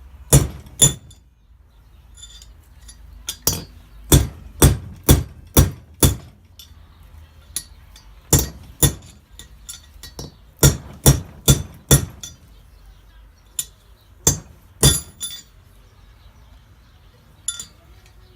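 Hammer blows on metal with a sharp metallic ring, coming in bursts of two to five strikes about half a second apart, knocking a tight bearing out of a Nissan Laurel C32 rear differential.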